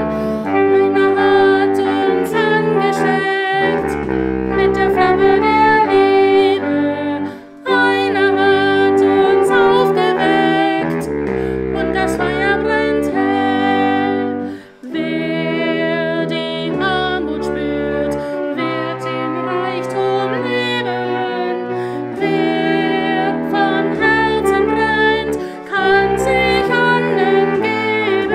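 Background music: a sustained melody over a stepping bass line, with two brief pauses about a third and halfway through.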